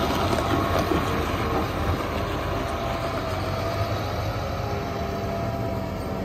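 John Deere 8370R tractor's six-cylinder diesel engine running steadily as the tractor drives away, the sound slowly fading.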